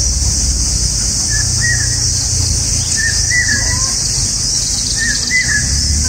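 Bulbuls at a nest with chicks chirping in three short groups about two seconds apart, over a steady high-pitched hiss.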